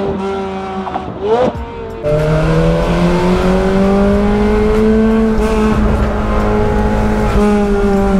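Ferrari 430 Scuderia 16M's V8 through a Capristo exhaust, driving at steady part throttle. After a quieter first two seconds with one brief rising-and-falling rev, the engine note turns louder and steady, its pitch climbing slowly, then easing off.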